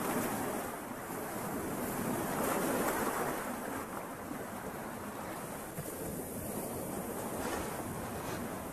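Lake waves splashing and washing around shoreline rocks, a steady rush of water that swells a couple of seconds in.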